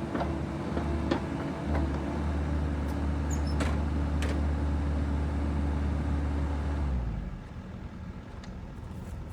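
Bobcat E42 mini excavator's diesel engine running steadily, with a few sharp metal clanks in the first half. About seven seconds in, the engine drops to a quieter, lower idle.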